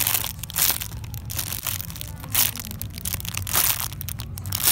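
Clear plastic bags crinkling as squishy toys sealed inside them are handled and squeezed, in irregular bursts.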